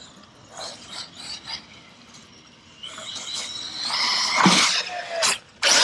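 Traxxas Sledge RC truck's brushless motor whining up in pitch as the truck accelerates, after a few seconds of faint irregular clicking, ending in a loud, sudden noise near the end.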